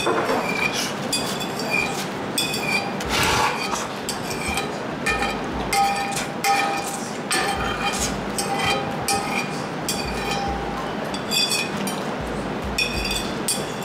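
Metal spoon scraping and clinking against a large porcelain bowl, a long run of irregular taps, each with a brief ring from the bowl, as the last grains of rice are scraped up from an almost empty bowl.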